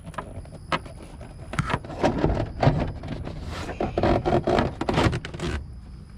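Dash cover being worked into place over a dashboard: scraping and rubbing with a run of knocks and taps, busiest from about a second and a half in until near the end.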